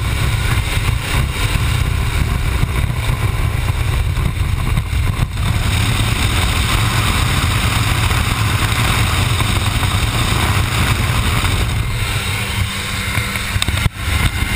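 Steady engine drone and wind rush inside the cabin of a climbing skydiving aircraft, with a brief dip near the end.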